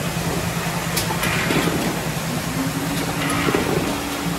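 K-cup packaging line running: conveyor and rotating timing screw giving a steady mechanical hum and rush, with a light click about a second in. The hum steps up in pitch about halfway through.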